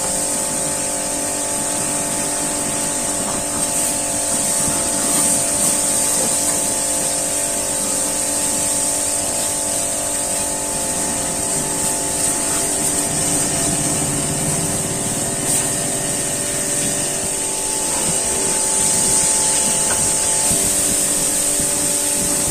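Pressure washer running steadily, its pump motor humming under the hiss of the high-pressure water jet spraying onto a Honda CG 125 motorcycle and the brick ground.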